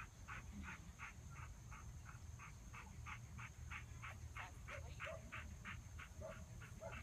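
A protection-training dog barking in a fast, even string, about three barks a second, fairly faint.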